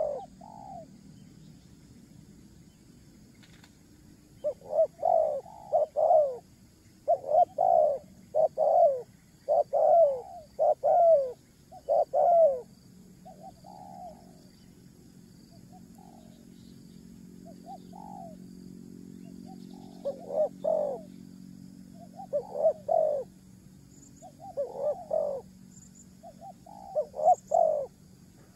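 A bird calling over and over in short groups of two or three low notes that slide downward, with a pause of a few seconds partway through when only a few faint calls come.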